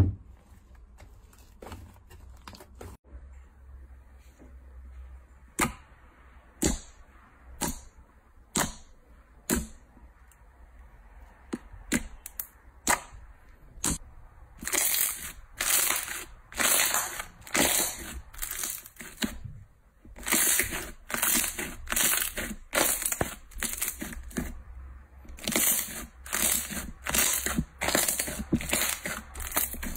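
Slime being kneaded and pressed by hand, squelching and crackling. First single sharp pops about once a second, then from about halfway a steady run of louder crackling squishes, roughly one a second, as the glossy slime is squeezed.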